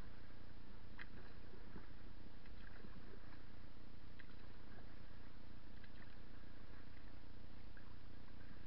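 Canoe on choppy river water: a steady low rush, with faint small splashes of water lapping against the hull now and then.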